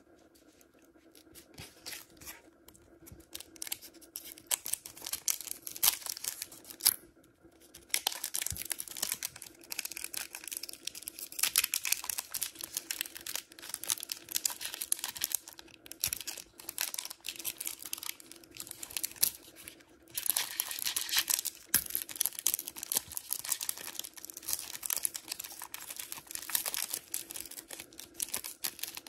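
Foil wrapper of a Pokémon trading card booster pack being crinkled and torn open by hand, a dense crackling that grows louder about eight seconds in, with brief pauses around seven and twenty seconds in.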